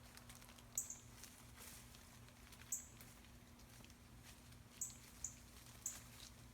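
About five short, sharp, high-pitched chip notes spaced irregularly over a quiet background, typical of a northern cardinal's alarm chips near its nest.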